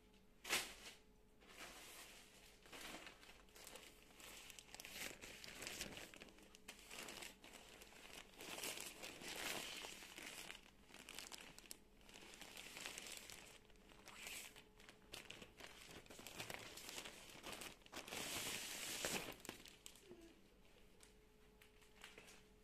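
Plastic packaging bag crinkling and rustling in uneven bursts as it is handled and opened, with a sharp click about half a second in.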